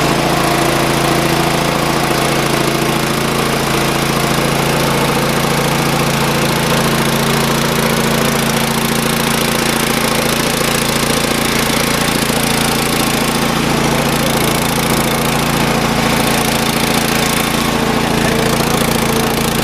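Small pull-start gas engine of an air compressor running steadily just after starting.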